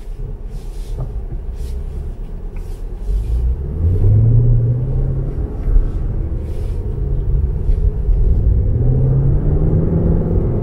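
Car engine heard from inside the cabin over a low road rumble, rising in pitch and getting louder about three seconds in as the car accelerates, then rising again near the end.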